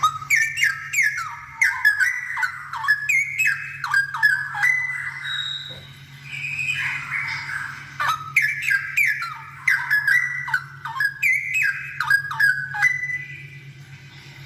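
Straw-headed bulbul (cucak rowo) singing in full voice, in two bursts of rapid, falling whistled notes, with the second burst starting about eight seconds in. A steady low hum runs underneath.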